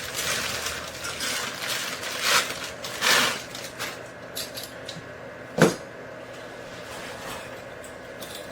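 Door handleset parts being handled: rustling and light knocking in the first few seconds, then one sharp metallic clink a little past the middle.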